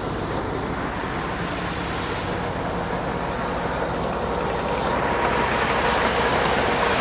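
Combine harvester running while harvesting soybeans: a steady engine hum under a wide rushing hiss, which grows louder and brighter over the last couple of seconds.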